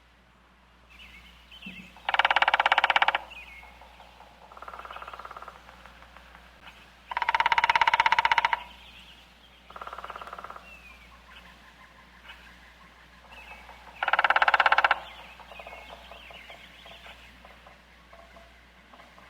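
Woodpecker drumming: five rapid bursts of tapping on wood, each lasting about a second. Three are loud and two are fainter, with faint bird chirps between them.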